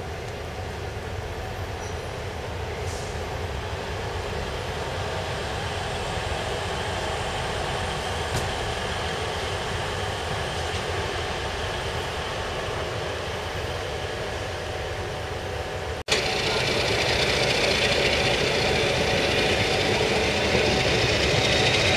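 Passenger train running slowly, heard from inside a coach: a steady rolling rumble. About 16 seconds in, a cut brings a louder rolling sound at an open coach window, with a thin high whine slowly rising in pitch.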